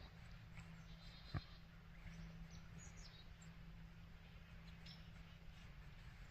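Near silence with faint, scattered bird chirps and a single short click about a second and a half in.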